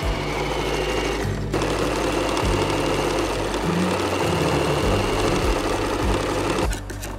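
Janome electric sewing machine stitching handwoven cloth, starting about a second and a half in and stopping shortly before the end, over background music.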